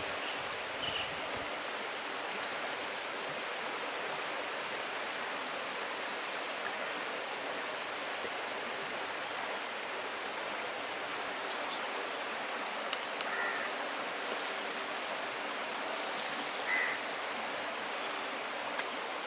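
Steady rush of river water flowing, with a few short bird calls scattered over it.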